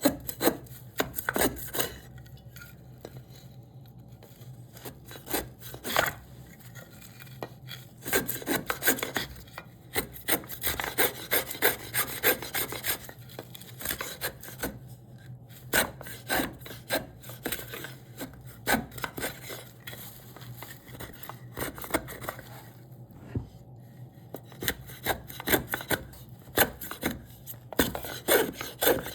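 Repeated scraping strokes of a hand tool shaping a piece of cherry wood, in irregular runs with brief pauses, over a steady low hum.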